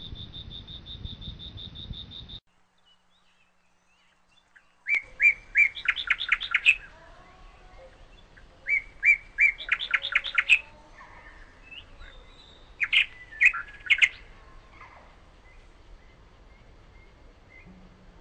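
A songbird singing the same short, loud phrase three times, each a few notes then a quick run lasting about one to two seconds. Before that, a high, rapid trill breaks off sharply about two seconds in.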